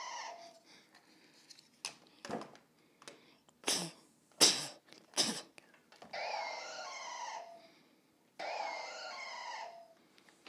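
Dialga's cry played from a Pokémon game's Pokédex cry screen, a pitched electronic creature call that ends about half a second in and is played twice more, about six and eight and a half seconds in. Between the cries come several sharp clicks and taps, the loudest about four and a half seconds in.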